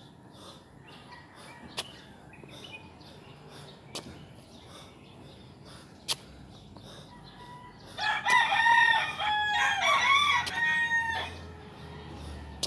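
A rooster crows once, a long call of about three seconds starting some eight seconds in. Three sharp clicks about two seconds apart come before it.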